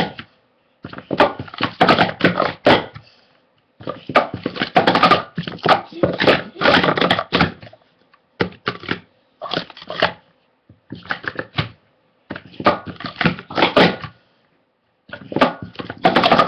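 Plastic sport-stacking cups clattering as they are rapidly stacked up and down on a stacking mat: fast rattling flurries of clicks a second or two long, broken by short pauses.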